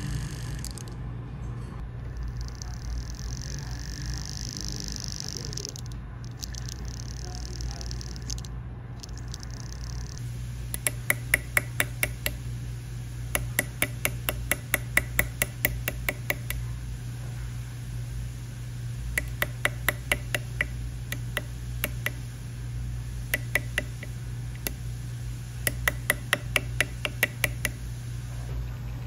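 Sharp metal clicks of a fine steel setting tool on the pavé seats of a cast metal pendant. They come in runs of rapid taps, several a second, each run lasting one to three seconds, starting about a third of the way in. A steady low hum lies under them.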